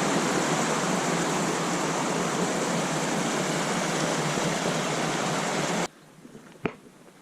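Steady rush of falling water from a mountain stream or waterfall, which cuts off abruptly about six seconds in. A single sharp click follows near the end.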